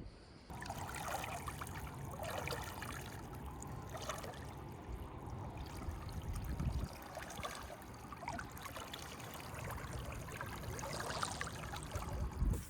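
Water splashing and trickling, irregular and unbroken, starting suddenly about half a second in.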